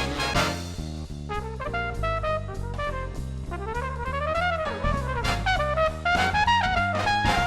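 Background music: brass-led jazz or swing with trumpet and trombone lines over a drum kit and bass, the trumpet playing rising and falling melodic runs.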